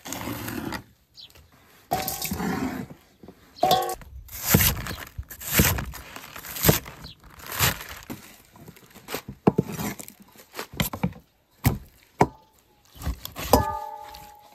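A cleaver cutting on a wooden chopping board: repeated uneven chops through green chilies and then napa cabbage leaves, each stroke ending in a knock on the board.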